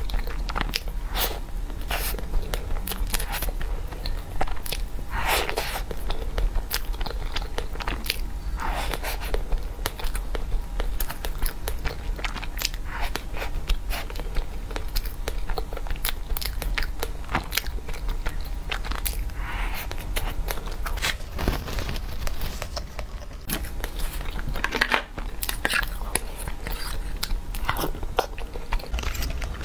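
Close-miked biting and chewing of a soft cream-topped pastry slice: wet mouth sounds with many small irregular clicks and smacks.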